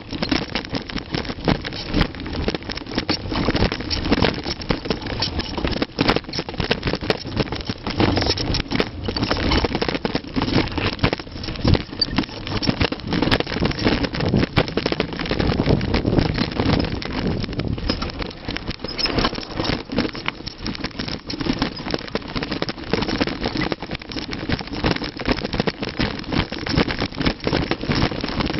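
Mountain bike descending a rough trail, with continuous rattling and clattering from the bike and chain as it runs over the ground.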